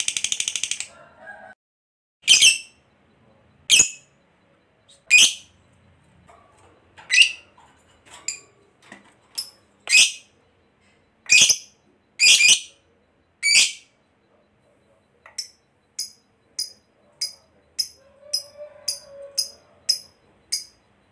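Lovebird calling. A rapid rattling chatter (ngekek) ends about a second in. Then come single sharp shrieks about every second and a half, and near the end a run of shorter, fainter high chirps, two or three a second.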